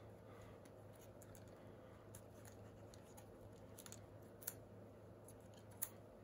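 Quiet handling of a DJI Mavic Air 2 drone as its arms are folded: faint plastic ticks, with two sharper clicks about four and a half seconds in and near the end.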